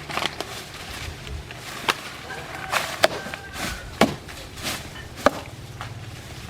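Sharp chopping strikes on wood, about five of them at uneven spacing, the loudest near the middle and toward the end, over a low idling chainsaw.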